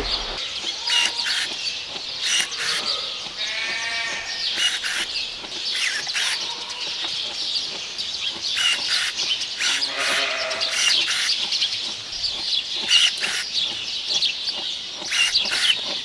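Sheep bleating in a barn pen, the clearest calls about 4 and 10 seconds in, over a constant high chirping and scattered clicks.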